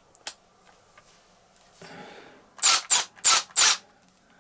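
Milwaukee M12 extended-reach 3/8-inch cordless ratchet: a couple of small clicks from its head, then four short bursts of the motor spinning the ratchet head as the trigger is pulsed.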